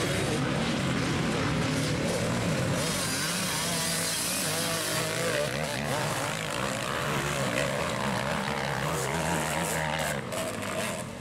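Motocross dirt bike engines running, a steady droning drone with some hiss that grows louder between about three and five seconds in.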